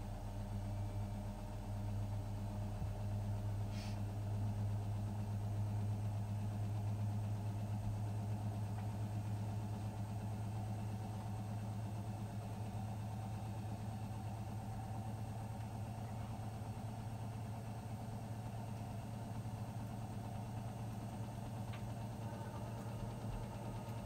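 Hotpoint WMFUG 942 washing machine spinning its drum at a steady speed during an intermediate spin: an even motor hum.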